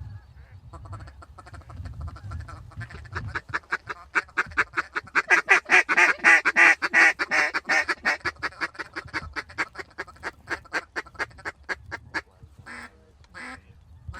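Mallard duck call blown in a long, fast run of quacks that builds up, peaks and then tapers off, with two short single quacks near the end: a caller working ducks toward the decoys.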